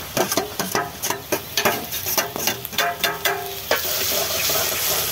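Steel spoon scraping and tapping chopped onions off a steel plate into a pot of hot oil, a quick run of clicks, then the onions sizzling in the oil from nearly four seconds in.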